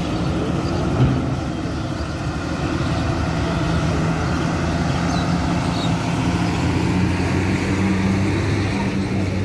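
Diesel engine of a Hino coach bus running as it drives slowly by at close range, a low steady engine note growing stronger as it comes past. A brief knock about a second in.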